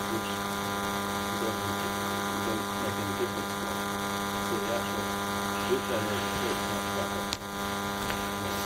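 Steady electrical mains hum with many overtones on the sound system, with a faint, distant voice beneath it.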